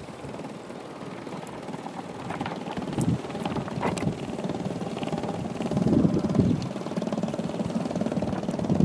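Small solar-powered drawing machine buzzing and rattling as it shakes itself across the board, its pen legs tapping rapidly on the paper and plywood. The buzz grows louder about six seconds in, with a few sharper clicks about three and four seconds in.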